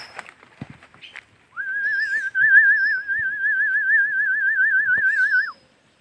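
A loud warbling whistle: one held note about four seconds long, wobbling quickly and evenly in pitch, that starts about a second and a half in and cuts off sharply. A few short, high bird chirps sound around it.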